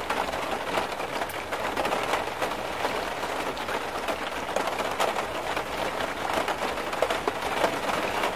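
Heavy rainstorm: a dense, steady rush of rain with many sharp taps of drops striking nearby surfaces.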